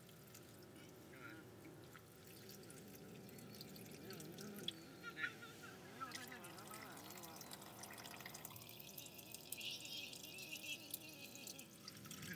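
Water pouring in a thin stream into a divided hot pot of steaming broth, trickling and splashing into the liquid.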